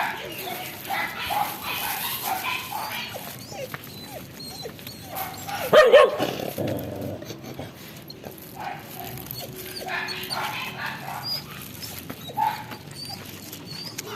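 Dogs barking in a string of short barks and yips, the loudest about six seconds in.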